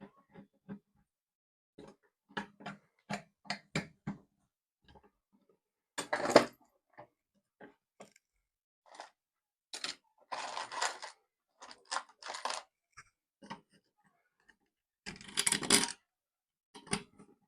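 Scattered clicks and knocks of small hard objects being handled, with a few louder brief clattering or rustling bursts about six, ten and fifteen seconds in.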